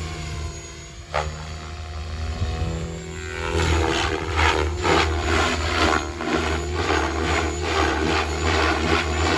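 Radio-controlled 3D helicopter flying overhead with its motor and rotor running steadily, and a single click about a second in. From about three and a half seconds in, the sound grows louder and takes on a pulsing chop, about two pulses a second.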